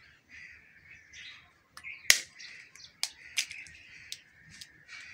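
An egg being cracked open over a glass bowl: one sharp crack about two seconds in, then several lighter clicks of shell and glass. Birds chirp in the background throughout.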